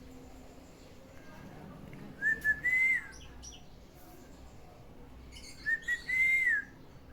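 Black-naped oriole singing: two matching fluty whistled phrases a few seconds apart, each two short notes followed by a longer slurred note that rises and then drops away.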